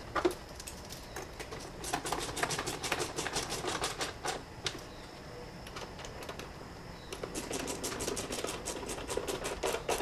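Small hand ratchet clicking rapidly as it tightens the worm-drive hose clamps on the mass airflow sensor's intake hose, in two runs of a few seconds each.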